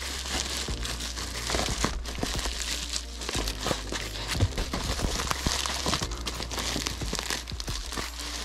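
Bubble wrap crinkling and crackling as it is folded and squeezed around a camera, with background music underneath.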